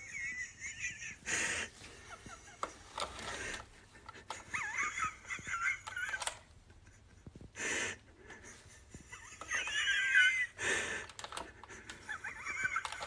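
A person's quiet wheezing laughter: high-pitched, squeaky wheezes that come in several fits, with sharp gasps for breath between them.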